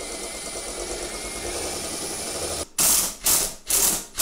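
Power drill running steadily as a twist bit bores through a plastic lawn mower console. From about two-thirds in come loud, short ratcheting bursts, about two a second, as the bit grabs in the plastic.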